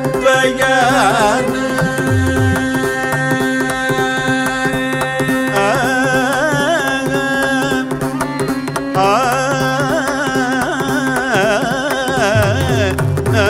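Carnatic music in raga Varali: a sung phrase at the start, then an instrumental melody with sweeping slides over a steady tanpura drone, and mridangam strokes coming in strongly near the end.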